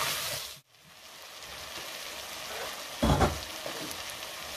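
Chopped carrot, apple, orange and onion sizzling as they sauté in oil in a pot; the hiss cuts out briefly about half a second in and comes back quieter, with one short low thump about three seconds in.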